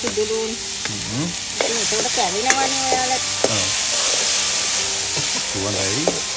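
Chopped onions, garlic and green chillies sizzling in hot oil in a metal wok, stirred with a spatula that scrapes against the pan, with a few sharp clicks of the spatula on the metal.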